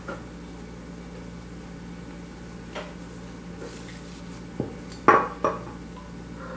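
Small hard clicks and clinks of painting tools and bottles handled on a granite worktop. Three sharp knocks come close together about five seconds in, the middle one loudest.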